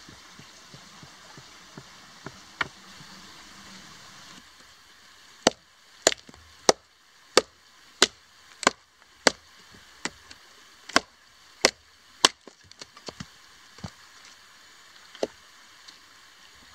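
Machete chopping wood: sharp wooden strikes about every two-thirds of a second, starting about five seconds in, then spacing out into a few lighter knocks.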